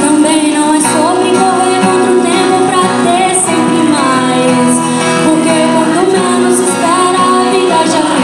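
A woman singing a slow Portuguese-language ballad into a microphone over steady instrumental backing.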